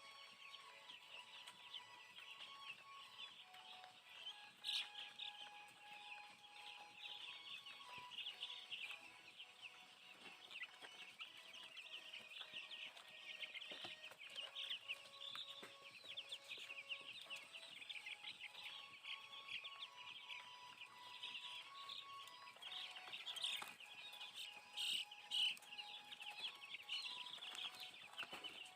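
A flock of young broiler chicks, about a week old, peeping continuously and faintly, with a few louder peeps about five seconds in and again near the end.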